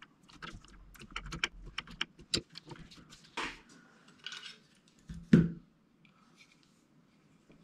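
Small metal hand tools, hex keys, clicking and clinking as they are handled on a workbench, then a single thump about five seconds in as a small electronics module is put down on the felt mat.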